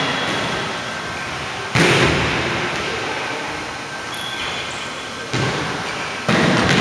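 Volleyball smacks echoing in a large gymnasium as balls are hit and bounce on the hardwood floor: one loud smack a little under two seconds in, then two more near the end, each ringing out slowly in the hall.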